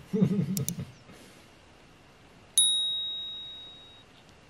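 A brief murmur from a woman's voice and a couple of mouse-click sound effects at the start. About two and a half seconds in comes a single bright notification-bell ding, the loudest sound, which rings and fades over about a second and a half.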